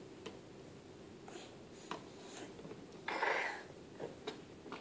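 Quiet room with a few light clicks from a toddler's hands on a plastic ride-on toy's steering wheel, and one short breathy sound from the toddler a little past halfway.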